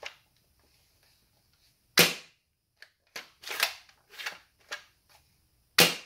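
M24 bolt-action gel blaster with an upgraded aluminium bolt, fired twice: two sharp snaps about four seconds apart. Between them come smaller clacks as the bolt is worked back and forward to cock it.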